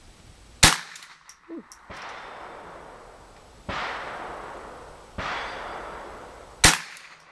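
Two sharp rifle shots about six seconds apart, fired slowly and deliberately as part of a group while the shooter holds the trigger back, with a few light clicks after the first. Between them come two duller bangs whose echo fades over more than a second.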